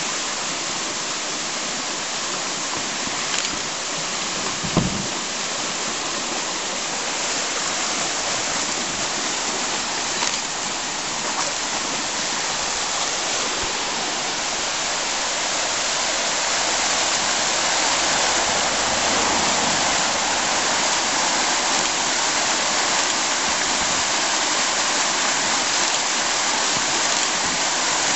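Whitewater of a small forest river rushing over rocks: a steady hiss that grows a little louder about halfway through. A brief low thump comes about five seconds in.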